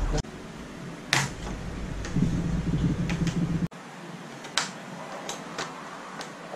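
Scattered sharp clicks and taps of gloved hands handling a computer and its cables, working the back panel off the case. A low hum under the first half stops abruptly about three and a half seconds in.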